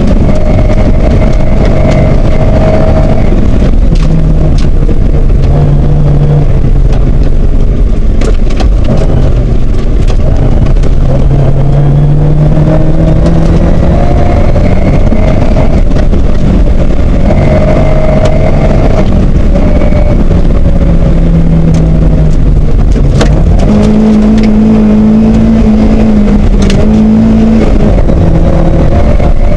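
Loud in-car sound of a Toyota Corolla KE55 rally car at stage pace, its engine revving hard, the pitch climbing and dropping again and again with gear changes and lifts. Water sprays over the car at crossings near the start and again near the end.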